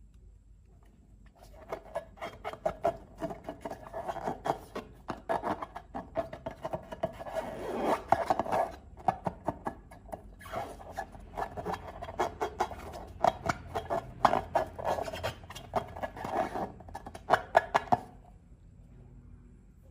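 Hands working slime and long rubber balloons: a quick, uneven run of rubbing and squeaking strokes that starts about a second and a half in, pauses briefly a few times, and stops near the end.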